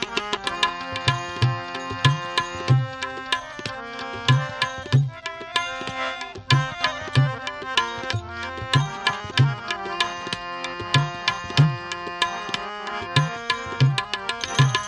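Instrumental passage of Indian devotional music: tabla keeping a steady rhythm with regular deep bass strokes and sharp treble strikes, under a sustained melody on harmonium and keyboard.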